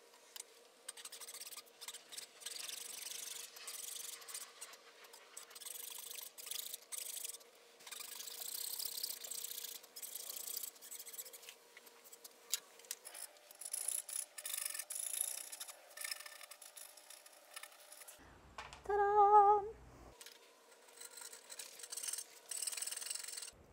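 Hand saw strokes cutting dovetail pins in a board held in a vise: a fine-toothed Japanese dozuki saw guided against a magnetic dovetail jig, rasping through the wood in runs of strokes. Near the end a coping saw takes over to clear the waste between the pins.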